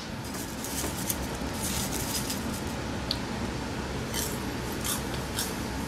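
Someone chewing a mouthful of crunchy cheese-and-spice flavored popcorn, with irregular crisp crunches over a low steady background hum.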